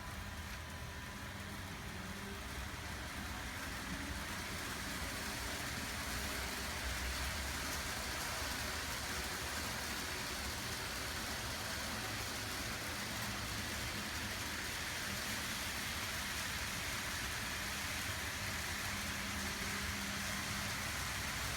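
N gauge model trains running on TOMIX track under automatic control: a steady rolling rumble of wheels and motors, growing a little louder over the first few seconds.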